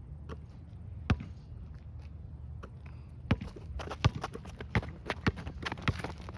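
Basketball being bounced on the court: a single bounce about a second in, then a run of quick dribbles from about three seconds in.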